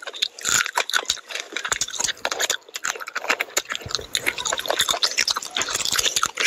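Chewing and wet mouth clicks of a person eating curry-coated fish by hand, a dense run of quick, irregular clicks.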